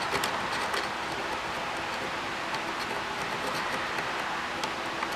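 Steady hiss with scattered light clicks and taps, typical of small parts and tools being handled during reassembly.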